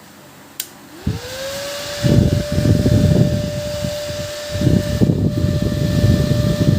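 A click, then a small 12 V CPU-style cooling fan spinning up with a quickly rising whine that settles to a steady hum. Its airflow buffets the microphone in uneven gusts of low rumble, the loudest part of the sound, and the whine begins to drop at the very end as the fan slows.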